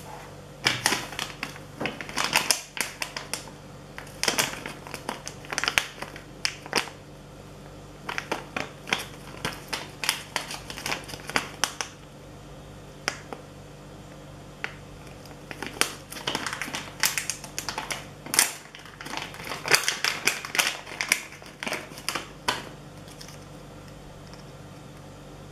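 Plastic packaging pouch crinkling and crackling as it is handled and opened, in two long spells of sharp crinkles with a pause between them.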